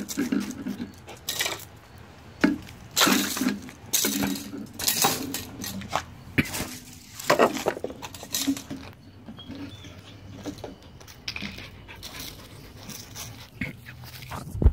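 Irregular scuffing footsteps over concrete and dry fallen leaves, with knocks and rustles of a phone being carried.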